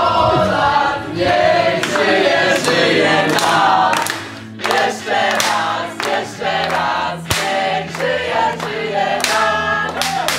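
A group of people singing together in chorus, with hands clapping along.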